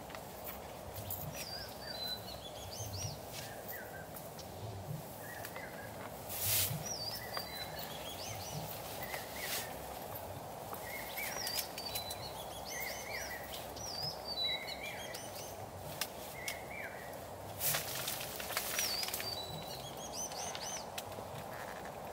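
Birds chirping in short repeated calls over a steady background hiss, with a few brief sharp sounds, the loudest about six seconds in and again near the end.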